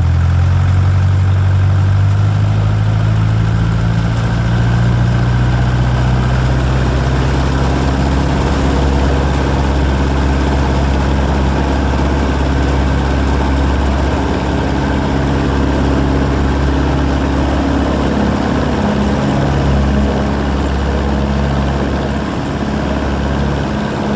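Champ light aircraft's piston engine and propeller idling at low power, heard from inside the cabin, with the engine note shifting slightly now and then.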